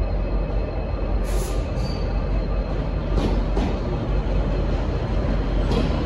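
Diesel trains rumbling steadily at a station platform, with several short high hisses about a second in, past the middle and near the end.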